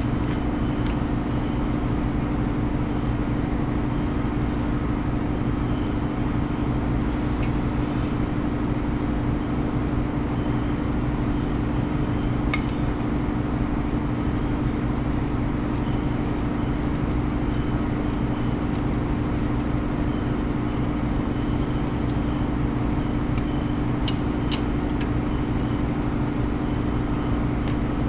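Steady low hum of workshop machinery, with a few faint metallic clicks from a ratchet snugging up brake caliper bracket bolts.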